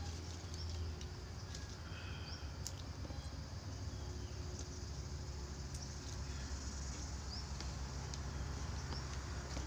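Quiet outdoor background with a steady low hum and a few short, faint bird chirps, with scattered small clicks and cracks as fruit skins are peeled by hand and a spoon touches a bowl.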